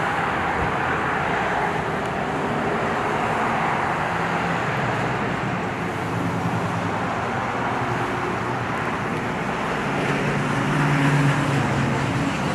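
Road traffic on a city street: a steady rush of passing cars, with an engine hum growing a little louder about ten seconds in.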